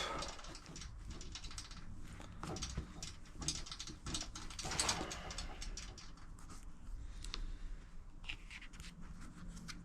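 Hand-handling sounds as a cloth is fetched and readied over a plastic panel: scattered light clicks and rustles, over a faint steady low hum.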